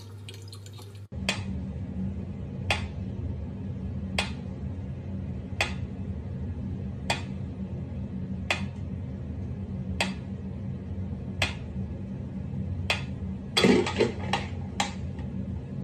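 Mechanical pendulum metronome ticking slowly, one sharp click about every one and a half seconds over a steady low hum. Near the end comes a short flurry of clicks and clatter.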